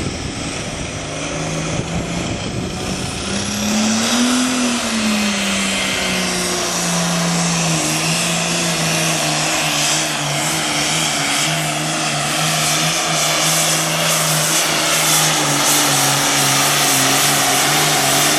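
Super farm class pulling tractor's diesel engine at full throttle, dragging the sled down the track. The engine note climbs and dips about four seconds in, then holds steady and loud.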